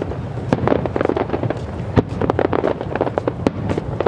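Aerial fireworks going off in a dense barrage: many overlapping bangs and crackles, several a second, with a few sharper reports standing out.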